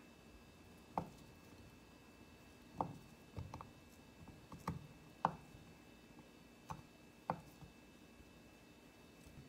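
Kitchen knife cutting through soft processed meat onto a wooden cutting board: about eight separate knocks of the blade meeting the board, irregularly spaced.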